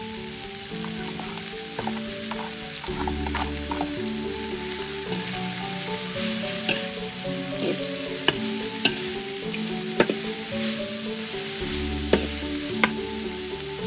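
Long beans, bean sprouts and oyster mushrooms sizzling in a large metal wok as a metal spatula stir-fries them, scraping through the vegetables and clanking sharply against the pan several times. Background music plays.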